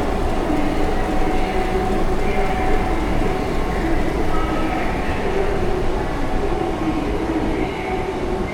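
Subway train running on its rails: a steady rumble with faint motor and wheel whines that shift slightly in pitch.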